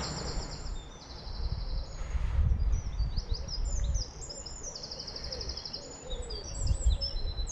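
Songbirds singing: a run of quick high trills and chirping phrases, one after another, over an uneven low rumble of wind buffeting the microphone.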